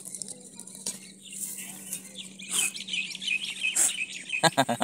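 Birds chirping, with a metal blade scraping and knocking against a halved coconut shell as the white flesh is pried out, ending in a quick run of sharp knocks.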